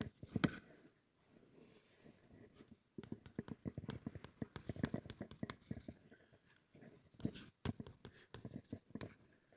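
Someone writing by hand, faint: quick taps and scratching strokes that come in a short run at the start and then two longer spells, about three and about seven seconds in.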